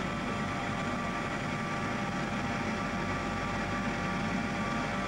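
Jet aircraft engines droning steadily in flight: an even rushing noise with faint steady whining tones through it.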